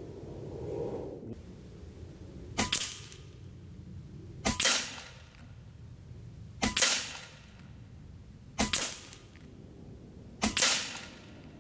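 Taipan Veteran II Tactical .25-calibre PCP air rifle fired five times, about two seconds apart, each shot a sharp crack that trails off quickly.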